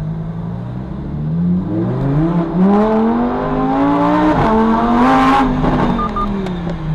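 Lamborghini Huracán STO's naturally aspirated V10 accelerating hard from low speed, heard from inside the cabin: the revs climb, drop sharply at two upshifts, climb again, then fall away as the driver eases off near the end. Two short beeps near the end are the dashcam's shock sensor going off because the stiff car jolts it.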